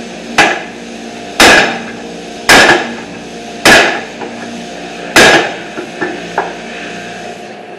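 Small sledgehammer striking a steel bar clamped in a bench vise, bending it to shape: five hard metallic blows about a second apart, each with a short ring, then two lighter taps.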